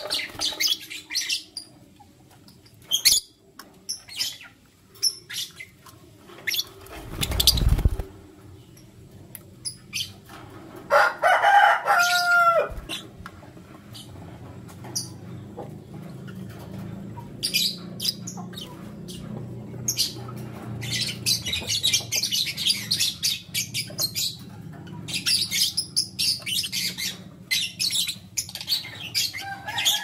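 Rosy-faced lovebirds chirping and chattering in short high notes, with bursts of wing flapping, the loudest about seven seconds in, and one harsh squawk a few seconds later. Near the end the birds break into dense, rapid twittering over a steady low hum.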